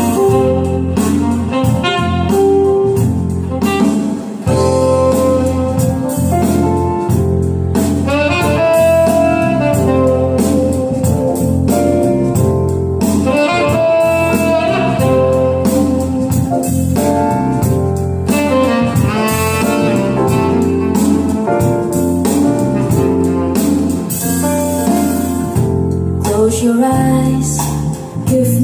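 Recorded music played loud through PA loudspeakers driven by an STP Technology DB14000 class-D power amplifier: an instrumental passage of a slow pop ballad with a saxophone melody over the backing band. The level dips briefly near the end.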